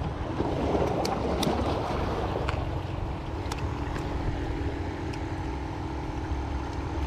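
Steady mechanical hum of a small motor over a low rumble, with a few faint light clicks.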